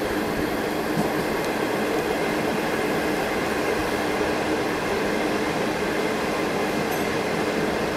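Inside a moving non-air-conditioned railway passenger coach: a steady rush of wind through the coach mixed with the running noise of the wheels on the rails, with a faint steady hum underneath.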